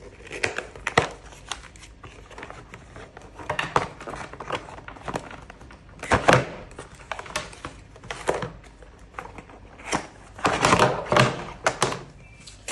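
Cardboard accessory box being opened and handled, with cables, a power adapter and a remote tipped out and set down on a table: irregular knocks, thuds and rustles, loudest about halfway through and again near the end.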